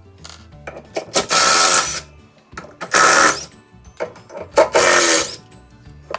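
A power tool whirring in three short loud bursts, each under a second, over background music.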